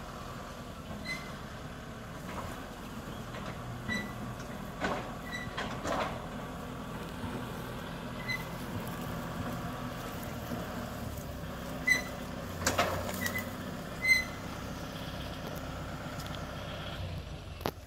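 Farm tractor's diesel engine running steadily at low revs as it reverses with an empty trailer, with a few clanks from the trailer and several short high squeaks.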